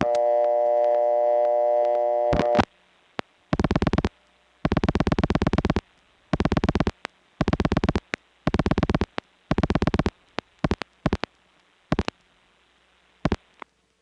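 Old-style buzzy dial tone on a step-by-step telephone line for about two and a half seconds, cut off as dialing begins. Then come rotary dial pulses heard on the line: about six quick runs of clicks, one per digit, followed by a few single clicks.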